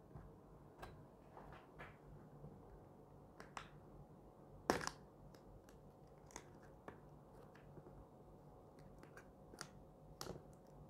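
Faint scattered clicks and scratches of a snap-off utility knife working at a taped cardboard box, with one sharper click about five seconds in.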